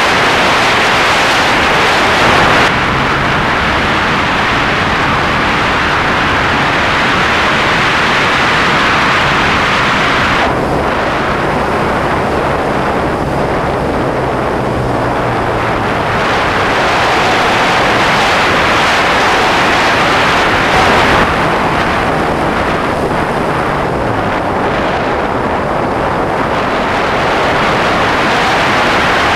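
Loud wind rush over a wingtip-mounted GoPro on a model plane in flight, with the plane's supercharged YS 115 four-stroke model engine running underneath. The rush changes as the plane manoeuvres, thinning about three seconds in and again after about ten seconds, then growing brighter again later on.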